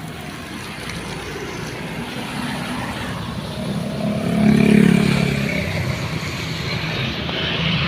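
A motor vehicle's engine passing by, growing louder to a peak about halfway through and then easing off.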